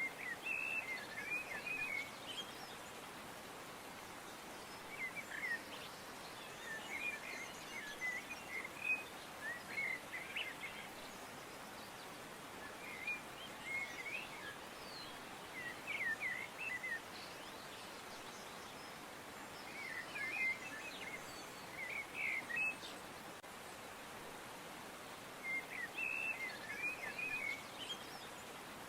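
Birds chirping in short twittering bursts every few seconds over a steady background hiss.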